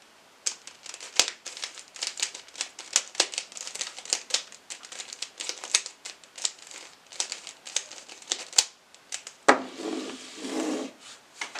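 Quick, irregular plastic clicking and clacking of a mirror cube's layers being turned by hand, stopping about nine and a half seconds in, followed by a brief softer rustle of handling.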